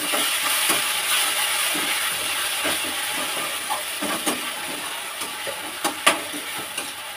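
Onions and freshly added chopped tomatoes sizzling in hot oil in a steel kadhai, the hiss slowly dying down, with a steel spatula scraping and clicking against the pan a few times.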